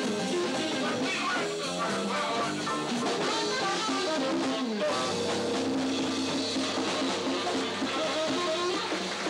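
Live jazz band playing: instruments carrying melodic lines with a rhythm section underneath, at a steady level.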